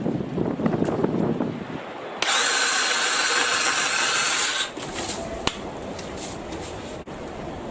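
A BLACK+DECKER 18V cordless saw runs at a steady high-pitched whine for about two and a half seconds, starting a couple of seconds in and cutting off abruptly. Before it there is a rough low noise; afterwards, quieter noise with a few clicks.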